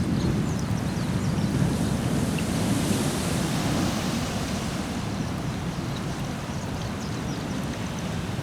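Storm surf washing in over the shore, with wind on the microphone. The wash swells about three seconds in, then eases off.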